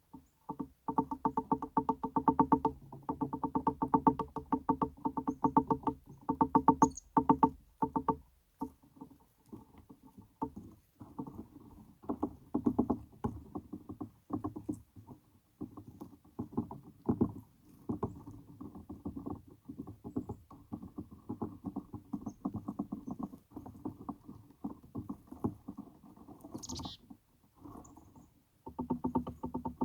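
Music built on a fast, pulsing low note, with a short break about a third of the way through and another near the end. A short, high, falling bird call comes in about three-quarters of the way through.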